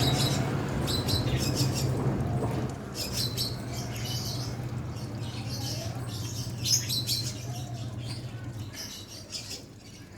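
Young prenjak (prinia) chirping in short bursts of high notes, repeated every second or two. A steady low hum runs underneath and stops near the end.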